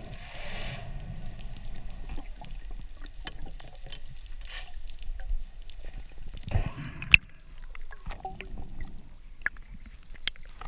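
Underwater ambience heard through a camera housing: a low rumble with scattered small clicks and crackles. About six and a half seconds in there is a brief rush of water noise, then a single sharp click.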